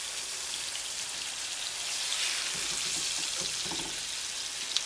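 Seasoned chicken breasts frying in oil in a large skillet: a steady high sizzle, a little louder in the middle as the pieces are turned, with a short click near the end.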